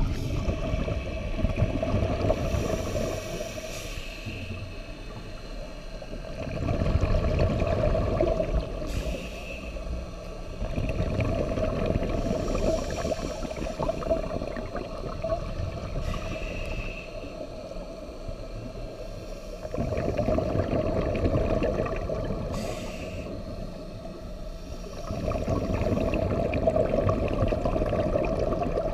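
Scuba diver's regulator breathing underwater, heard through a GoPro's waterproof housing: exhaled bubbles gurgling out in surges every five or six seconds, with quieter stretches between. It sounds muffled.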